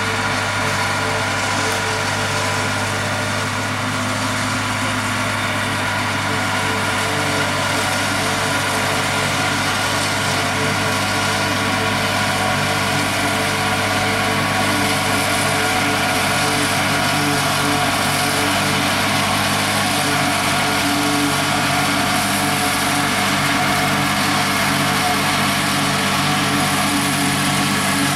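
International Harvester tractor's engine running steadily under load, driving a forage harvester that chops standing corn into silage. It makes an unbroken mechanical drone with several held tones.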